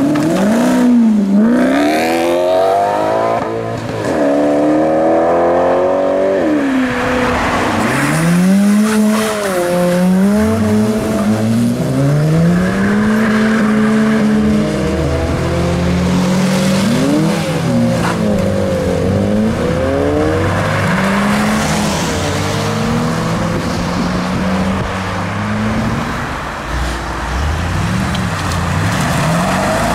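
A string of cars accelerating away one after another, their engines revving up in rising sweeps and dropping back at each gear change. A Maserati GranTurismo's V8 pulls away at the start, and an Audi S5 coupé's V8 pulls out near the end.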